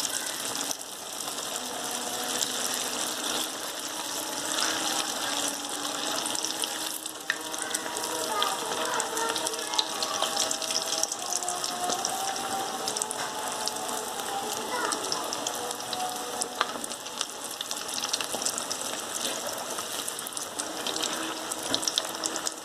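Vermicelli-coated potato balls deep-frying in hot oil: a steady, dense sizzle with fine crackling throughout.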